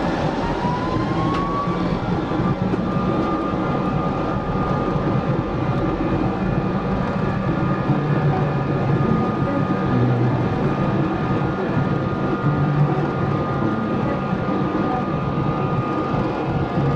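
Boeing 777-300's twin jet engines heard from inside the cabin during the takeoff roll: a whine rises in pitch over the first two seconds, then holds steady over a dense, steady rumble.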